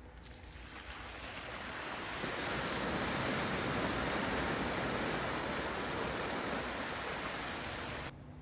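Water splashing and sloshing as a Tesla Cybertruck's tyres plough through a muddy trail puddle. The rush builds over the first couple of seconds, holds, and cuts off suddenly near the end.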